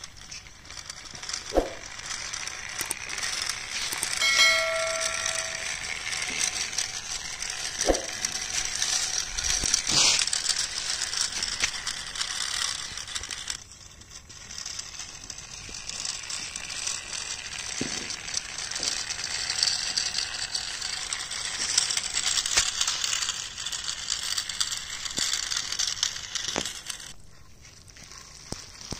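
Toy tractor and trailer rolling over gravelly dirt, the small plastic wheels crackling and rattling on loose stones, with scattered sharp clicks. A brief pitched tone sounds about four seconds in.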